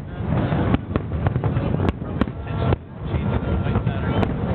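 Fireworks display bursting: a run of irregular bangs over a continuous low rumble.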